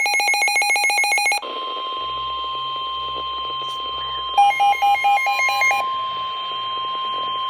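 Emergency Alert System flood-warning alert tones. A rapidly pulsing electronic beep sounds for about the first second and a half, then gives way to one long, steady attention tone. A second quick beeping pattern plays over the steady tone for about a second and a half in the middle.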